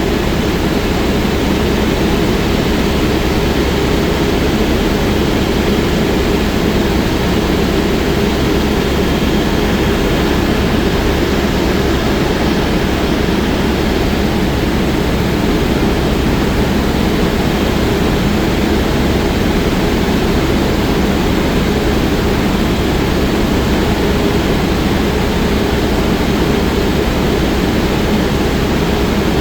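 Helicopter in flight: steady, loud engine and rotor noise that holds level throughout, heaviest in the low range, with a few faint steady whines above it.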